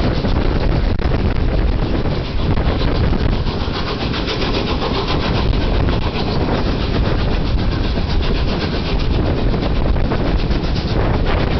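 Three-cylinder Peppercorn A1 Pacific steam locomotive 60163 Tornado working a 12-coach train at speed: a rapid exhaust beat heard a few coaches back, over the rumble of the coaches' wheels on the rails and some wind noise on the microphone.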